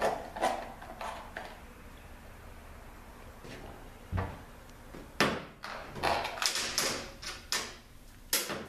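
Hand tools and transmission parts handled on a workbench: irregular clicks, knocks and scrapes, with a dull thud about four seconds in and a busier run of knocks in the second half.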